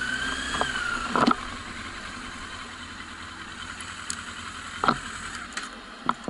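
Yamaha FZS600 Fazer's inline-four engine idling while stopped, with a few sharp clicks and knocks.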